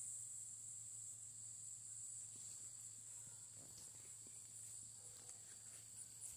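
Faint, steady high-pitched chorus of insects in summer vegetation, with a few faint rustles of the pepper plants about halfway through.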